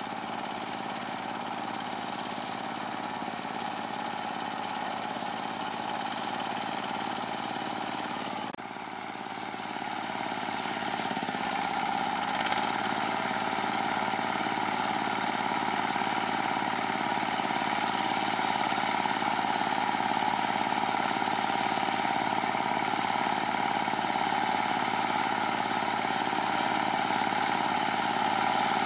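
Chinese D30 diesel engine of a ditch-digging tractor running steadily under load as its cage wheels churn through a muddy paddy. It dips briefly about eight seconds in, then grows louder.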